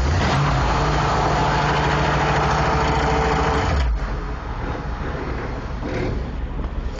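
Ford 302 small-block V8 in a 1938 International D15 rat rod idling steadily just after a cold start. About four seconds in, the sound suddenly gets quieter and rougher.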